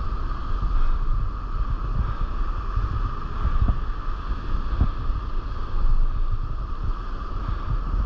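Wind buffeting the action camera's microphone in uneven gusts, over the steady wash of surf breaking on the beach.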